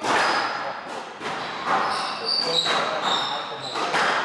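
Squash ball being struck by rackets and smacking off the court walls, several sharp hits in a rally, each echoing in the court. Shoes squeak briefly on the court floor between the hits.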